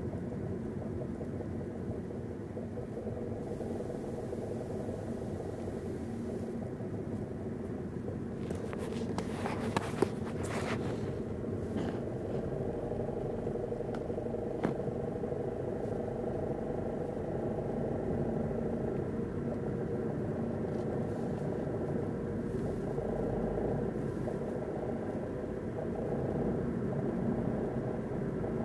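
Car driving steadily in fifth gear: a continuous engine and road drone, with a few short knocks about nine to eleven seconds in and one more a few seconds later.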